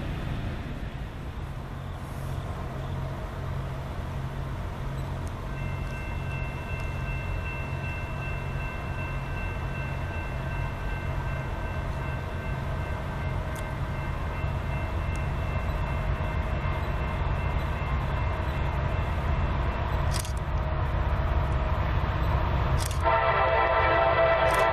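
Approaching Norfolk Southern freight train led by SD60E diesel locomotives, their EMD two-stroke V16 engines running with a steady low drone that slowly grows louder. Near the end the lead locomotive's air horn sounds loud, a chord of several tones.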